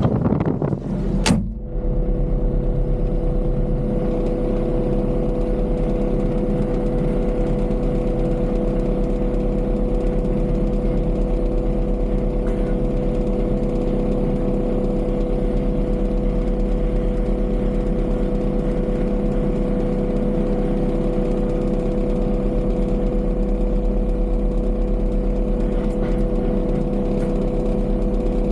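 Heavy earthmoving machine's engine running steadily, a deep rumble with a steady whine over it; a sharp click sounds about a second in.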